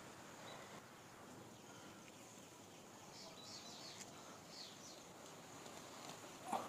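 Quiet outdoor ambience with a few faint bird chirps in the middle, and a brief soft knock near the end.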